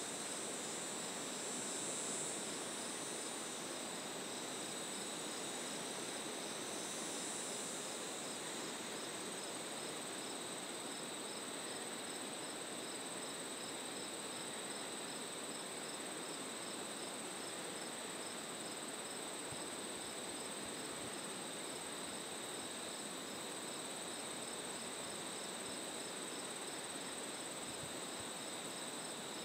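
Late-summer chorus of singing insects such as crickets: steady high trills, with a regular chirp repeating underneath.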